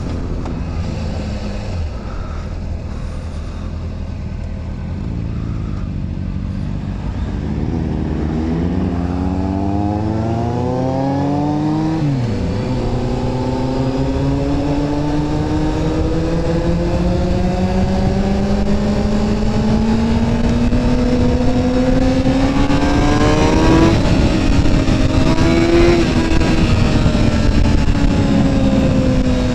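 Honda CBR sport motorcycle's engine heard from the saddle: steady at low revs at first, then revving up from about eight seconds in, dropping sharply at a gear change, then climbing slowly through a long pull. Near the end it shifts again, rises briefly, and eases off as the throttle is closed, with wind noise throughout.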